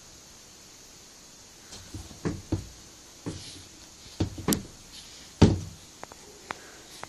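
Two cats playing, bumping against things: a run of irregular knocks and thumps starting about two seconds in, the loudest a little past the middle.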